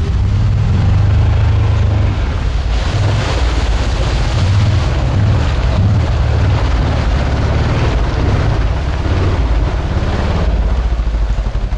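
CFMoto CForce 550 ATV's single-cylinder engine running under load as it drives through deep mud, tyres churning the mud. The sound swells from about three seconds in and eases near the end.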